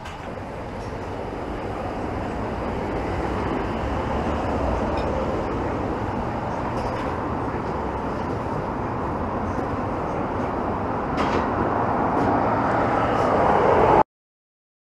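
City street traffic noise, a steady rushing hum that swells louder throughout, then cuts off abruptly about fourteen seconds in.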